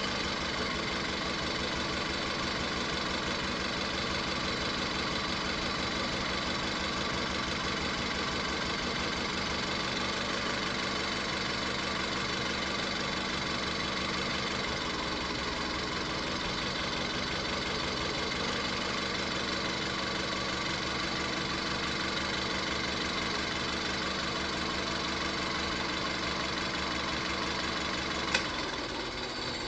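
Car engine idling steadily with a misfire in cylinder 3, during a power balance test in which injector connectors are unplugged one at a time. A single sharp click near the end is followed by a brief change in the engine's note.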